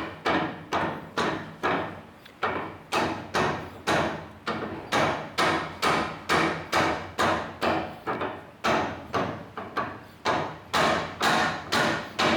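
Steady, repeated hammer blows on metal, about two a second, each with a short ring, as a front-suspension part is driven into place on a drop axle.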